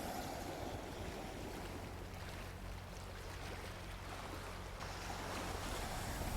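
Gentle ocean waves washing onto a beach: a steady surf wash that swells a little near the end.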